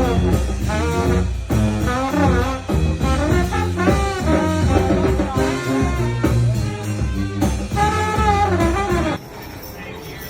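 Brass-led jazz band playing, with horns carrying a wavering melody over a strong low bass line. The music cuts off abruptly about nine seconds in, leaving a quieter background.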